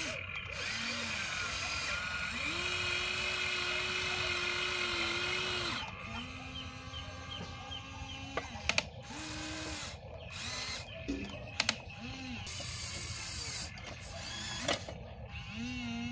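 Huina radio-controlled excavator's electric motors whining in stretches of a second or more as the arm, bucket and turntable move, each whine starting and stopping with a slight slide in pitch. A few sharp clicks come in the second half.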